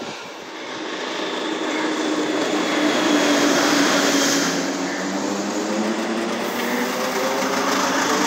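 ÖBB S-Bahn electric multiple unit pulling out along the platform, its motors whining and rising slowly in pitch as it gathers speed, over a steady rolling rumble.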